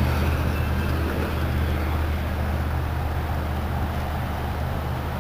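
A boat's motor running with a steady low hum.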